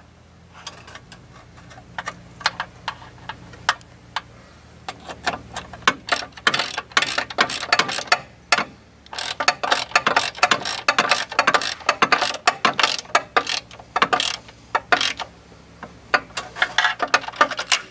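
Socket ratchet clicking as its handle is swung back and forth to tighten a bolt on a steering-box frame brace. The clicks are sparse at first, then come in quick repeated runs from about a third of the way in until near the end.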